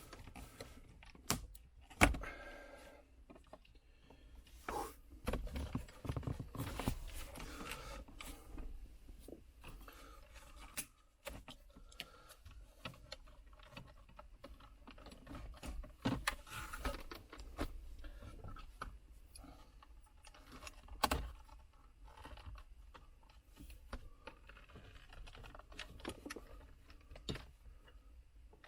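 Irregular clicks, knocks and light rattles of hand work with tools and small parts, with a few short scrapes; the sharpest knock comes about two seconds in.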